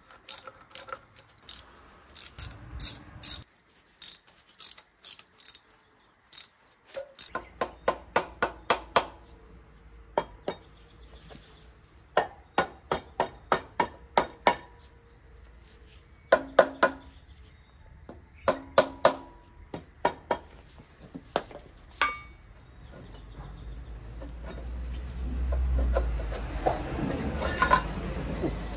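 Hammer tapping on the rusted exhaust parts of a V6 3-litre turbo engine, in runs of several quick, evenly spaced metallic strikes. Near the end a louder, rougher scraping rumble builds as a part is worked loose.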